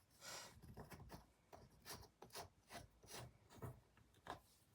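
Faint scratchy rubbing strokes of a paintbrush working oil paint over a rough, rock-textured canvas, a few strokes a second.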